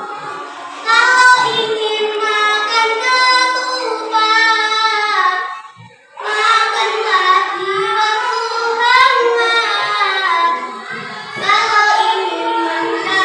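A young girl's solo voice in a melodic, sing-song chant, with long held notes and a short pause about six seconds in.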